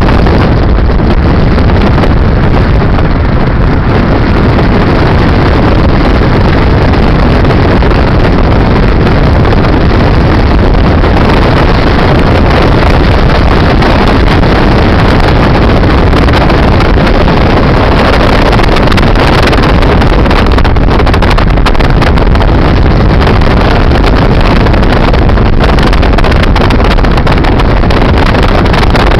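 Wind buffeting the camcorder microphone at the side window of a car driving at road speed: a loud, steady rush of noise that comes on suddenly at the start.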